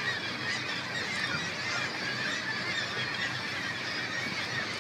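A seabird colony on a sea cliff calling: a continuous din of many overlapping honking, squawking calls.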